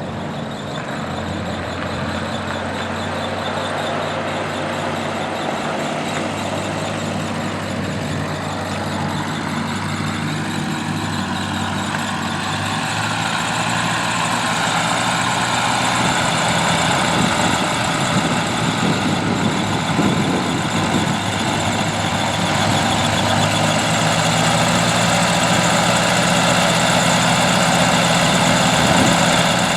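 Ford 8N tractor's four-cylinder flathead engine running steadily as the tractor is driven, growing gradually louder. No noise from the repaired rear end.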